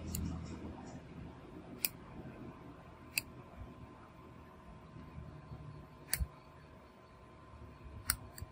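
Light, sharp taps of an S Pen stylus tip on a Samsung Galaxy Note 9's glass screen, a few seconds apart, with two in quick succession near the end, over a faint steady background hum.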